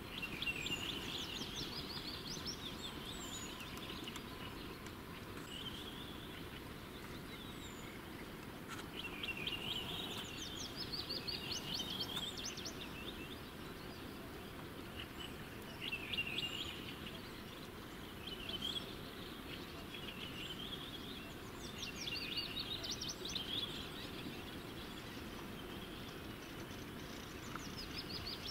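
Songbirds singing short, quick trilled phrases every few seconds, with fainter high chirps from other birds, over the steady rushing of a spring-flooded river.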